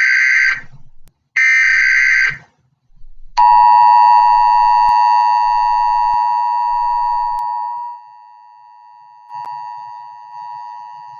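Emergency Alert System tones. First come the last of the screechy SAME data-header bursts: the end of one, then one more lasting about a second. About three and a half seconds in, the steady two-tone attention signal starts loud, drops in level around eight seconds and keeps sounding.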